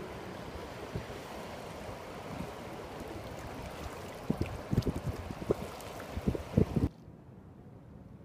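Wind blowing across the microphone: a steady rush with a run of low buffeting thumps in the last few seconds, then it cuts off suddenly to a much quieter hush.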